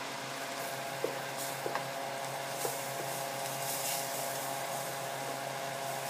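Onion and garlic sizzling steadily in butter and oil in a steel pot, with a few light clicks of a spoon against the pot as cornstarch is stirred in, over a steady low hum.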